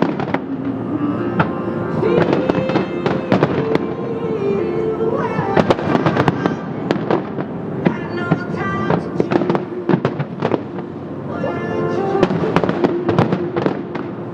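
Aerial fireworks bursting in a dense barrage of bangs and crackles, with a music soundtrack of held notes playing along with the show.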